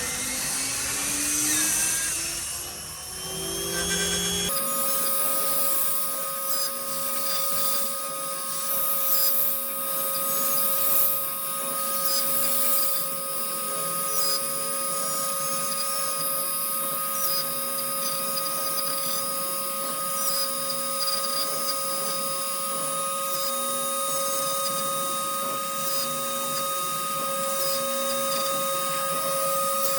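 CNC router cutting 8 mm PVC board. The spindle's whine rises in pitch at first. After an abrupt change about four seconds in, it settles into a steady high whine, with a shifting mechanical pattern underneath as the machine moves through the cut.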